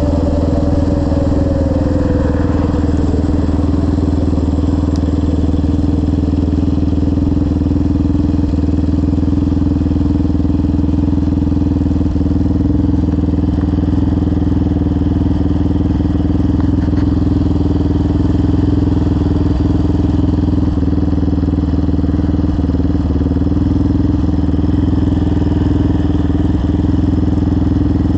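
Yamaha Raptor 700R ATV's single-cylinder engine running at a steady speed through a full CT Racing exhaust. A falling tone fades out in the first few seconds.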